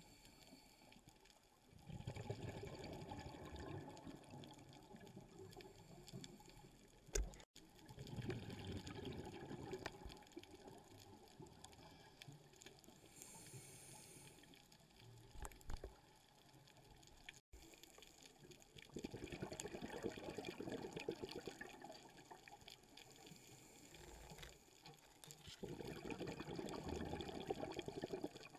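Underwater bubbling heard through a camera housing, in rumbling bursts a few seconds long with quieter gaps between, typical of a scuba diver's exhaled breath. A single sharp knock sounds about seven seconds in.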